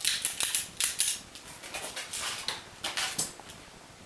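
Irregular light metallic clicks and rattles of a Ruger Vaquero single-action revolver being handled and cocked, with no shot fired.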